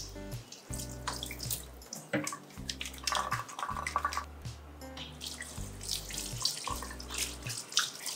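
Kitchen tap turned on, water running and splashing into a stainless steel sink as hands are washed under the stream, with background music and its bass line underneath.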